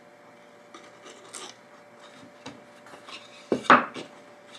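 Razor knife cutting and scraping through glued cork on a wooden board in short, faint strokes, then two louder knocks of the wooden pieces being handled on the bench about three and a half seconds in.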